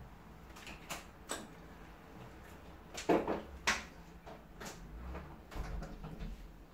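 Close-up eating sounds of rice eaten by hand: a string of short, sharp mouth smacks and clicks, the two loudest about three seconds in, with a soft low thudding near the end.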